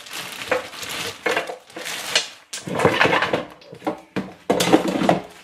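Fries being tipped into an air fryer basket, rattling and rustling against it in four or so irregular bursts.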